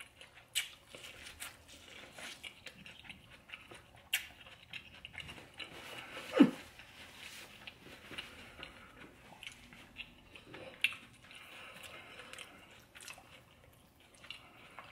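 A person chewing and biting seafood boil food, with many small wet mouth clicks and crunches. About halfway through there is one louder, short sound that falls in pitch.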